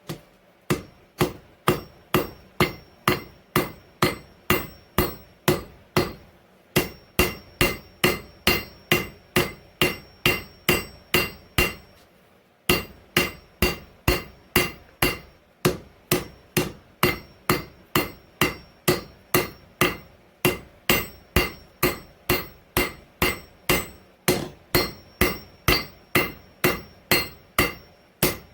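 Hand hammer striking a hot steel file blank on an anvil while forging a knife, a steady rhythm of about two blows a second with a faint metallic ring between them. The hammering stops briefly twice, about a third and about halfway through.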